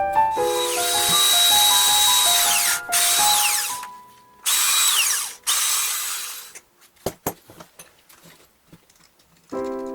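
Electric drill running at speed for about three and a half seconds, its whine dropping as the trigger is released, then a second shorter run of about a second that also winds down, followed by a few light knocks.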